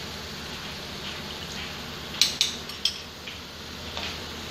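Chicken cooking in a wok over a gas flame, a steady low hiss, with a few sharp metal taps of a utensil against the wok a couple of seconds in.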